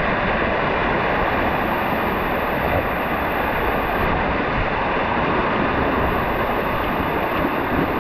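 Waterfall pouring into its plunge pool: a steady, loud rush of water.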